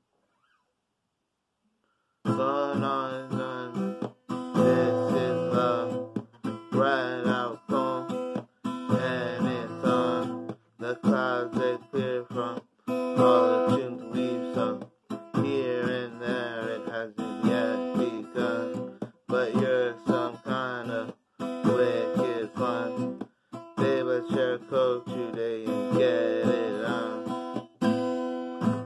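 Acoustic guitar strummed in a steady rhythm, playing the opening chords of a song. It starts about two seconds in.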